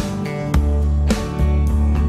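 Background instrumental music with a steady beat, notes struck about twice a second over a sustained low bass.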